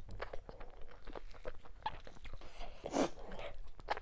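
Close-miked eating sounds of a person eating fufu with ogbono soup by hand: chewing, wet mouth clicks and finger licking. There is one louder sound about three seconds in.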